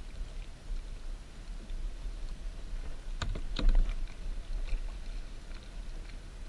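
Wind rumbling on the microphone and small water and handling noises on a fishing kayak at sea, with a short cluster of sharp knocks a little past halfway.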